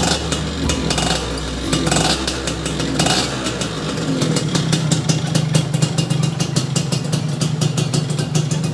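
Yamaha F1ZR's 110 cc two-stroke single-cylinder engine running, with a couple of short throttle blips in the first few seconds before it settles to a steady idle.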